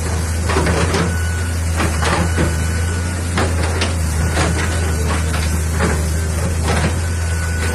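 CAT 320C excavator's diesel engine running steadily, with short hissing, clattering noises about once a second over it.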